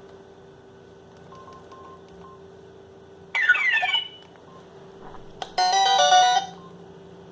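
Alcatel OT-757 mobile phone sounding short snippets of its built-in ringtones: a few faint beeps, then about three seconds in a one-second run of falling electronic notes, and a second chord-like electronic snippet about a second long nearer the end, over a faint steady hum.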